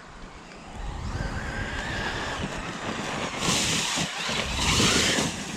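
Losi RZR Pro R RC side-by-side driving off-road: its electric motor whines as it speeds up, then two loud rushes of tyre noise, about a second apart, as the tyres scrabble across the ground.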